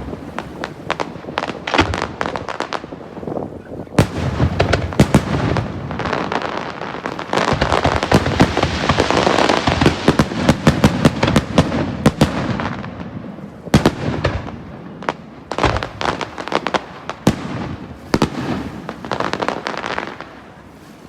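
Aerial fireworks bursting in quick succession: sharp bangs, thickening about a third of the way in into a dense run of crackling, then thinning back to scattered booms near the end.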